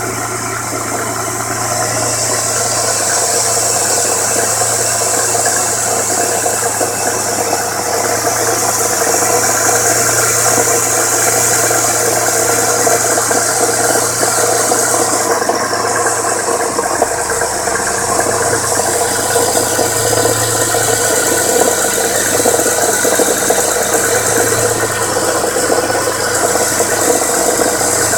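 1998 Ford Contour SVT's 2.5-litre V6 running with a steady, rapid knocking rattle, which the owner takes for engine knock. The low hum of the engine shifts lower about two-thirds of the way through.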